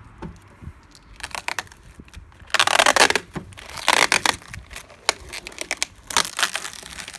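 Protective plastic film being peeled off a router and crinkled, in irregular rustling bursts. The loudest bursts come about two and a half seconds in and again about four seconds in.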